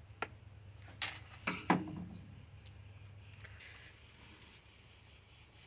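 A few short, sharp clicks and knocks from handling the opened plastic extension board, mostly in the first two seconds, over a steady low hum and a faint steady high-pitched whine.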